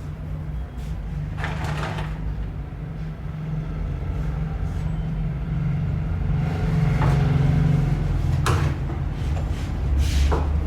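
Generator engine running steadily with a low hum, with a few sharp knocks over it.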